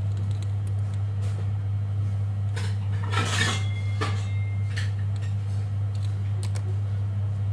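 Small hard objects being handled and set down: a few light knocks, then a longer metallic clatter with a brief ring about three seconds in, over a steady low hum.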